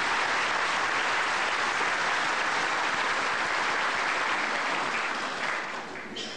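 A large audience applauding steadily in a hall, the clapping dying away near the end.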